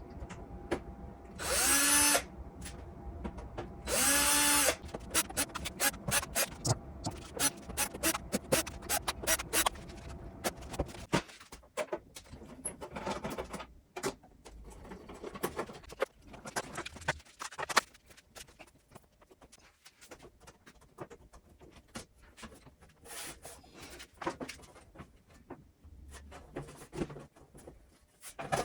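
A small power drill run in two short whirs of under a second each, followed by a long string of clicks and light knocks.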